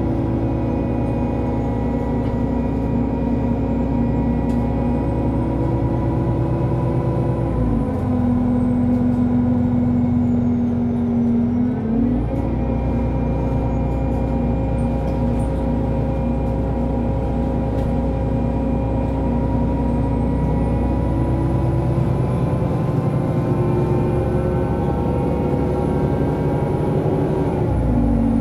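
Solaris Urbino 18 III articulated bus engine running under way, its note holding steady, dropping in pitch about 8 s in, stepping back up about 12 s in and dropping again near the end.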